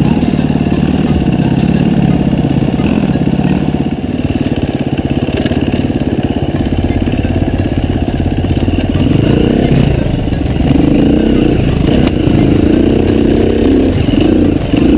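Enduro dirt bike engine running, its revs rising and falling as the throttle is worked. It runs higher and busier from about nine seconds in.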